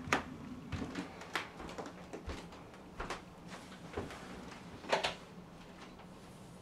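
Scattered light knocks, clicks and rustles of a person moving about, sitting down on a couch and handling a laptop, over a low steady hum; the loudest knock comes about five seconds in.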